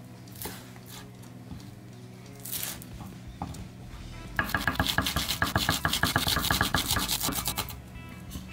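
Kitchen knife chopping green onion on a wooden cutting board. There are a few single cuts at first, then from about four seconds in a fast, even run of chops, roughly eight a second, for about three seconds.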